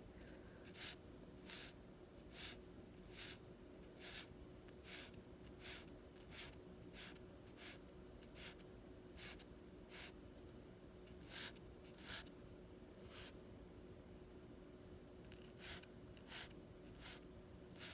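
Drawing strokes scratching on paper, short and quick, about one to two a second, with a pause of about two seconds past the middle. A faint steady hum runs underneath.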